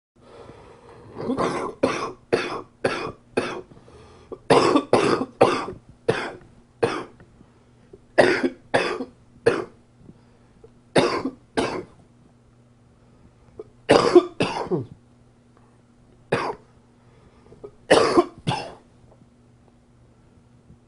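A man coughing in repeated fits, clusters of two to six sharp coughs every few seconds, the longest runs in the first seven seconds and single coughs or pairs after that. A faint steady hum lies underneath.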